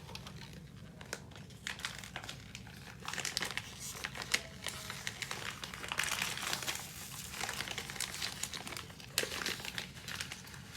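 Packaging being crinkled and rustled by hand as it is worked open, with many small sharp clicks, busiest in the middle.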